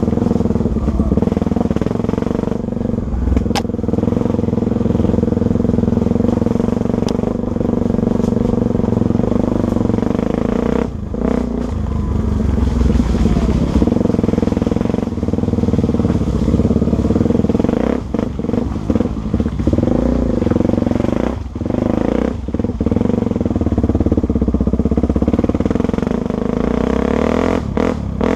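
Honda Tornado 250 single-cylinder four-stroke motorcycle engine running at a fairly steady speed while being ridden. The throttle is briefly rolled off a handful of times, mostly in the second half, giving short dips in the sound before the engine picks up again.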